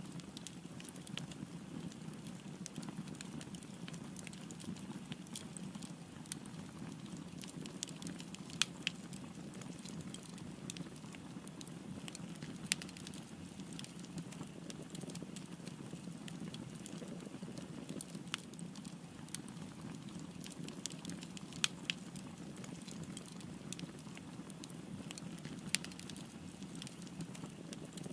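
Wood fire burning with a steady low rush and irregular crackles and pops, a few of them sharper than the rest.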